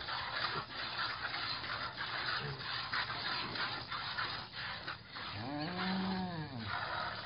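A piglet suckling at a cow's teat, with irregular wet smacking and sucking noises. About five and a half seconds in, a cow gives one short, low moo that rises and falls in pitch.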